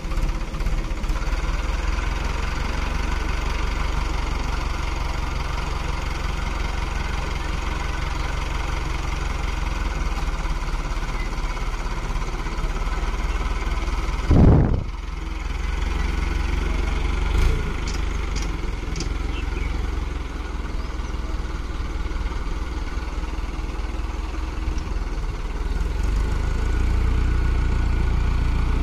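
Mahindra tractor's diesel engine running steadily at low speed as the tractor moves slowly. There is a brief loud low thump about halfway through.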